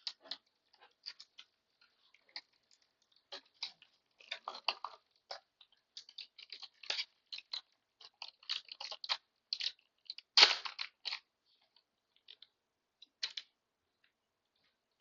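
Baseball trading cards being handled and flipped through, making a run of short, irregular crisp clicks and rustles, with a louder rustle about ten and a half seconds in.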